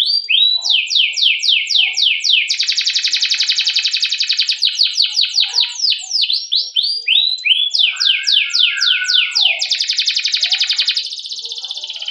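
Domestic canary singing a long rolling song: runs of quick downward-sweeping chirps, about four a second, alternating with very fast rolling trills.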